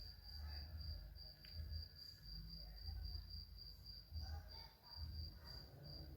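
A cricket chirping steadily and faintly in a high, even pulse of about three chirps a second, over a low background rumble.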